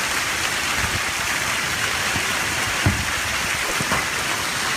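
Heavy storm rain pouring down in a steady hiss, with a dull thump about three seconds in and a smaller one a second later.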